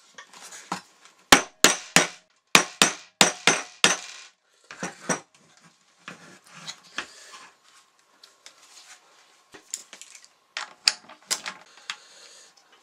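Small hammer tapping on the plastic tank and bracket of a Truma Therme water heater with quick, light blows: two fast runs in the first four seconds, a few more about five seconds in, then quieter handling and a last few taps near the end.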